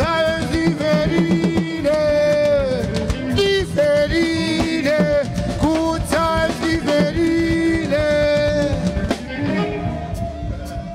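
A live band playing: drum kit and low end under a melody line that slides up and down between held notes.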